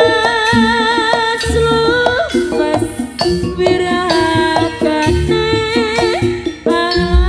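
East Javanese jaranan music: kendang hand-drum strokes under a held, wavering melody line, played by the full ensemble.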